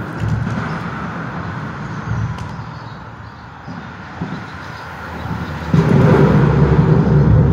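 Road traffic on the bridge overhead: a steady low noise, then a passing vehicle that comes in loud and low-pitched near the end.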